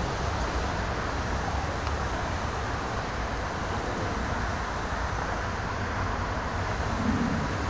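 Steady low rumble and hiss of a diesel freight locomotive approaching from a distance, heard over general city background noise.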